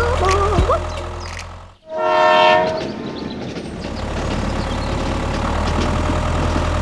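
A single horn blast, about a second long, starts about two seconds in. It sits over a steady low mechanical hum.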